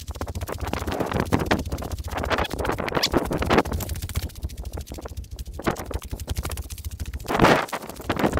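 Footsteps crunching over rocky, gravelly desert ground, irregular and close, with a steady low rumble underneath and a louder step or knock near the end.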